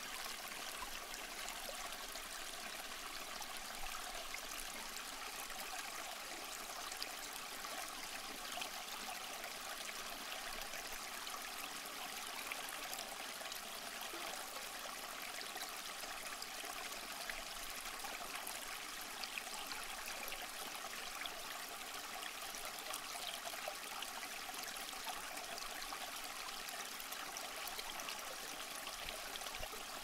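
Small tabletop cement waterfall fountain running: water trickles steadily from its step spouts and splashes into the pool of its basin.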